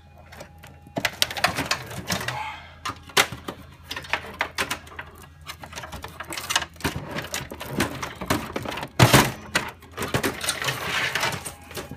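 Clicking, rattling and scraping of the power supply being worked loose from the sheet-metal case of a Dell OptiPlex 755 desktop, with a loud knock about nine seconds in.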